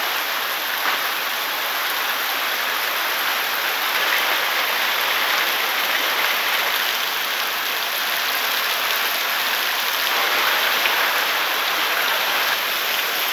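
Heavy downpour: a dense, steady hiss of rain.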